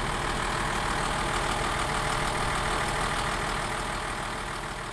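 Engine idling steadily, fading out near the end.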